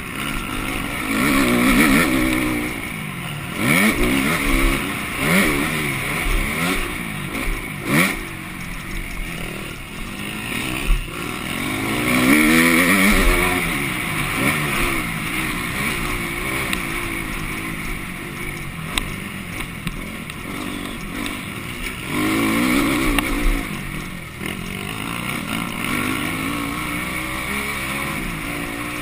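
Motocross bike's engine close to an on-board camera, revving up and falling back again and again as the rider works the throttle and gears around the track, with a couple of sharp knocks from the bike hitting bumps.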